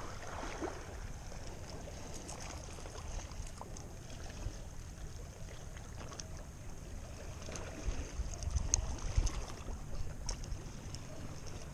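Wind rumbling on the microphone over sea water lapping at a rocky shore. The rumble comes in harder gusts for a couple of seconds near the end.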